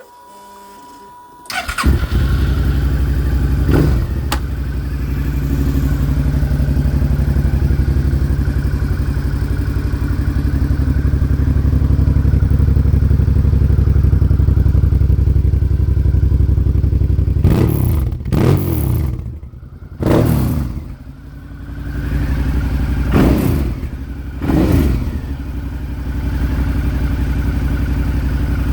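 Suzuki DL650 V-Strom's V-twin with an Akrapovic exhaust starting about two seconds in, blipped once, then idling steadily. Later it is revved five times in quick, short blips that rise and fall, settling back to idle between them and at the end.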